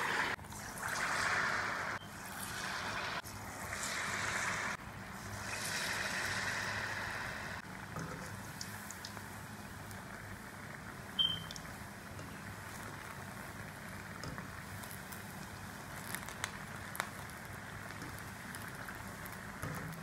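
Batter-coated dates deep-frying in hot oil in a kadai, the oil sizzling and bubbling. Louder stretches of sizzling for the first seven seconds or so, each cut off abruptly, then a steadier, quieter sizzle, with a brief high ping about eleven seconds in.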